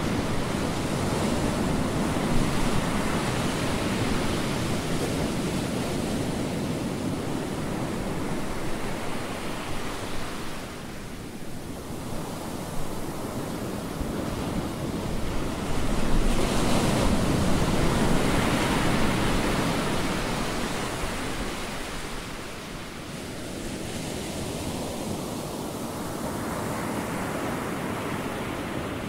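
Ocean surf breaking on a sandy beach: a continuous wash of waves that swells and ebbs, with a louder wave breaking about sixteen seconds in.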